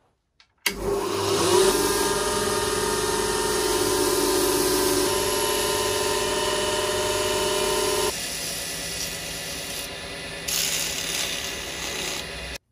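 A bench grinder runs up about a second in, steady, its spinning wire wheel brushing rust off a small steel screw. About eight seconds in the sound changes to a quieter motor turning a screw chucked on a spindle, with a brighter hiss of sandpaper polishing it near the end. It cuts off abruptly.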